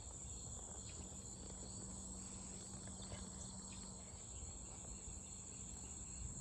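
Steady high-pitched chorus of insects, such as crickets, droning without a break, with a few faint ticks.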